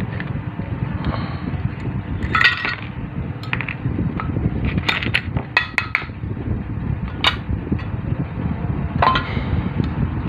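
Scattered small metallic clinks and taps, about eight of them, a few ringing briefly, over a steady low background noise.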